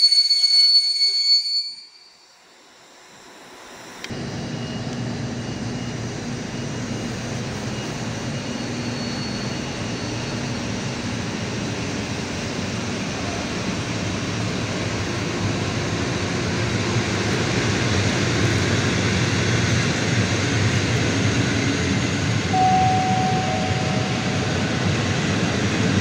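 Train wheel squeal, several high steady tones, fades out within the first two seconds. After a short lull, the steady rumble of a train of PKP Intercity passenger coaches rolling past on the rails starts suddenly and slowly grows louder.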